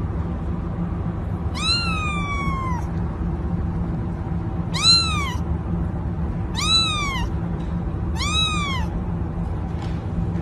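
A cat meowing four times, each meow rising then falling in pitch, the first one longer and drawn out, over a steady low background hum.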